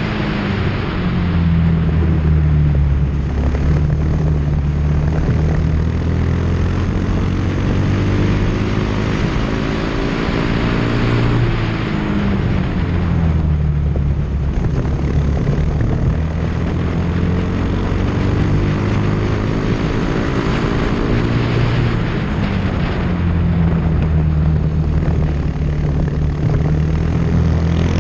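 Onboard sound of a formula race car's engine at racing speed, its pitch climbing under acceleration and falling away under braking several times, with a steady rush of wind over the microphone.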